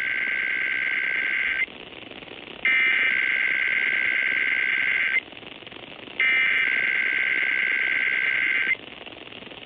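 Emergency Alert System SAME header: screeching digital data bursts. The tail of one burst ends about a second and a half in, followed by two more, each about two and a half seconds long with a one-second pause between, over a steady hiss. These bursts open the required weekly test alert.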